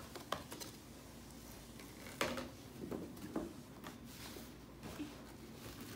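Scattered soft taps, clicks and rustles of cardboard jigsaw puzzle pieces being handled, laid down and pressed into place on a carpet, about five or six short knocks spread over a few seconds.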